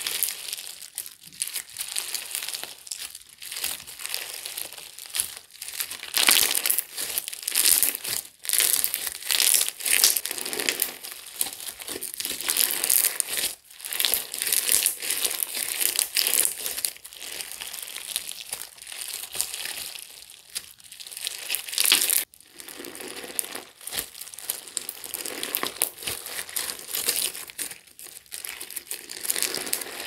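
Crunchy purple glitter slime, Mongle Factory's 'Asak Galaxy', being stretched, folded and squeezed by hand: a continuous dense crackling and crinkling, swelling with each squeeze about every second.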